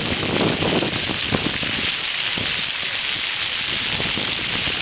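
Jets of a pavement fountain splashing: a steady hiss of falling water.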